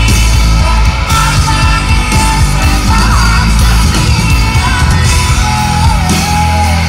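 Live rock band playing loud, with electric guitars, bass and drums and a woman singing, heard from the crowd.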